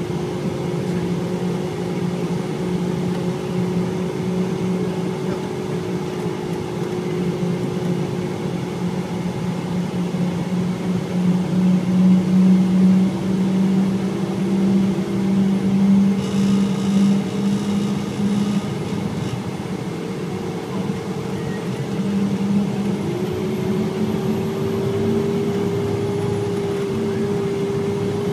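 Vehicle engine and drivetrain heard from inside the cab while driving, a steady hum whose pitch drops about halfway through and climbs again near the end as the vehicle slows and picks up speed.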